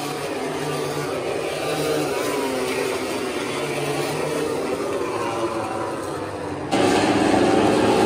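Racing motorcycle engines running at high revs on the circuit, a steady drone that turns suddenly louder near the end.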